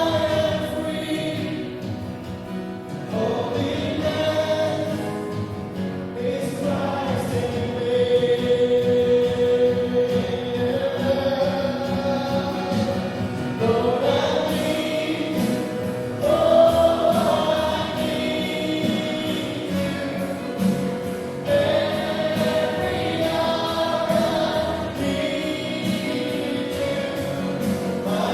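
A congregation or worship choir singing a gospel hymn with instrumental accompaniment, in long held phrases.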